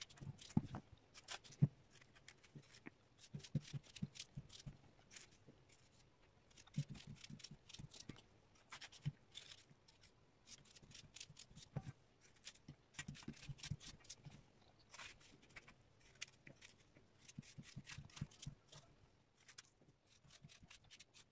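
Small kitchen knife paring and slicing persimmons by hand: soft, irregular cutting clicks and scrapes in quick clusters, with occasional light knocks.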